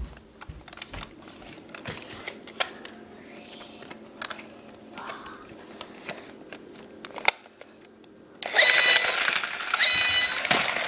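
Robot toy cat being handled, with faint scattered plastic clicks, then switched on about eight and a half seconds in, starting loud electronic sounds with chirping, bending tones.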